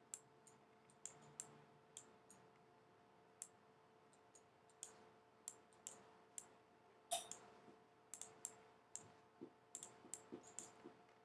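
Irregular sharp clicks of a computer mouse, about two a second, a little denser in the second half, over a faint steady hum.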